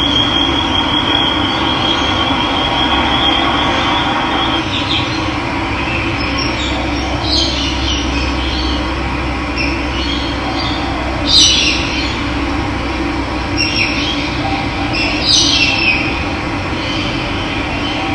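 Steady rush of running water with birds calling over it: a thin high trill for the first few seconds, then short scattered chirps, the loudest about two-thirds of the way through and again near the end.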